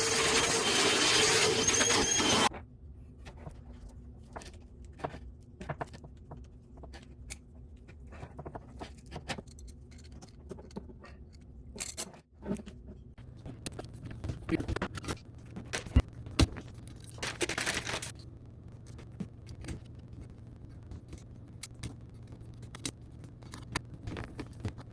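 A loud scraping that cuts off sharply about two and a half seconds in, then scattered clicks, knocks and brief rustles of hands working with tools and parts.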